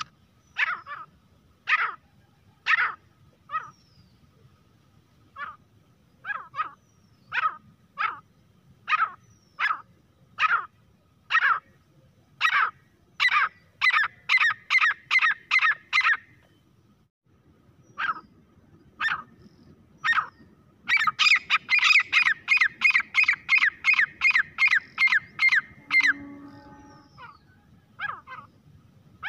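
Grey francolin calling: loud, sharp notes about once a second that speed up into rapid runs, the longest and loudest lasting about five seconds in the second half.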